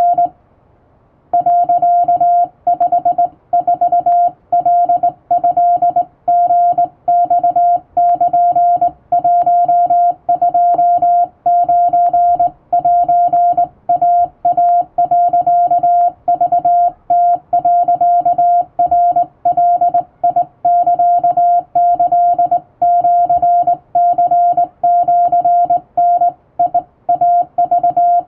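Morse code sidetone, a single steady tone keyed on and off by hand on a vertical straight key, sending Japanese Wabun code as dots and dashes. It starts after a pause of about a second.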